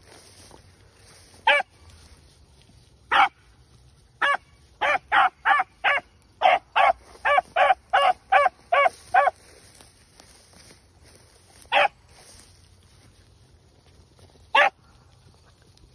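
A young rabbit hound barking as he runs a rabbit's scent trail, nose to the ground. It starts with a few single barks, then a quick run of about a dozen barks at roughly three a second, then two more single barks.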